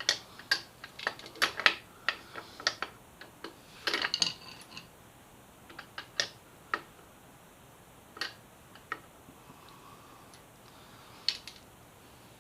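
Irregular sharp metallic clicks and taps as bolts and metal motorcycle parts are handled and fitted by hand. The clicks come thick and fast for the first few seconds, then only now and then.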